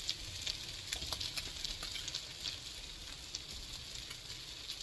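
Onions and brinjal frying in oil in a wok: a soft, steady sizzle with scattered small crackles.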